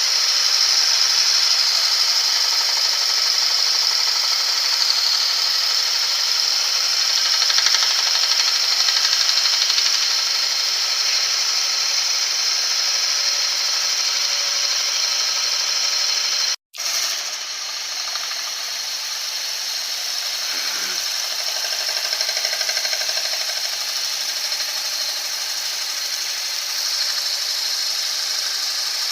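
CNC wood lathe turning a wooden drum blank, the cutter shaving the spinning wood in a steady, high-pitched hiss. It cuts out for an instant partway through, then carries on a little quieter.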